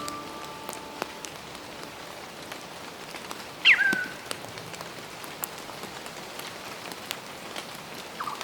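Steady rain falling, with scattered drop ticks. Once, about a third of the way in, a bird gives one loud call that slides quickly down in pitch and ends on a short held note.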